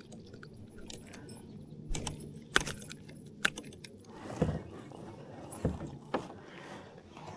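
A few sharp clicks and knocks with light metallic rattling, spread irregularly over several seconds and with a soft swish partway through: a just-landed bass and its metal spinnerbait being handled in a kayak.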